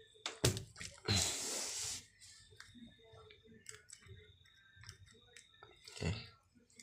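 Clicks and knocks of wire clips being connected to a battery, with a hissy burst lasting about a second shortly after the first sharp clicks, then scattered small clicks and a louder knock near the end.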